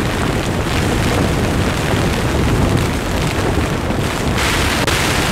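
Typhoon wind and driving rain battering a dome tent, heard from inside: a loud, steady roar with low rumbling buffets on the fabric. About four seconds in, a brighter hiss of heavier rain or a gust sweeps over it.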